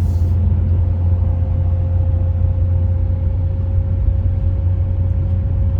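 Acura NSX driving at a steady speed, heard from inside the cabin: a steady low rumble of engine and road noise with a faint, steady whine above it.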